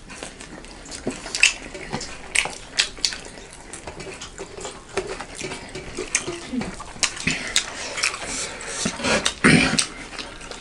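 Eating at a table: irregular small clicks and clinks of plates and cutlery with chewing sounds, close to the microphone, and a louder, longer noise about nine seconds in.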